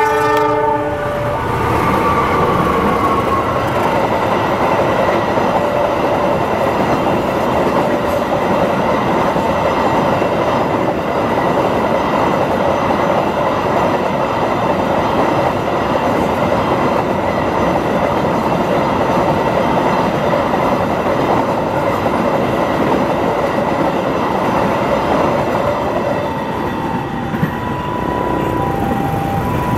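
Freight train rolling past a level crossing: a steady rumble and clatter of wagon wheels on the rails, with the crossing's warning siren sounding as steady tones over it. The locomotive horn's last note fades in the first second or so, and near the end the siren tones break into short notes.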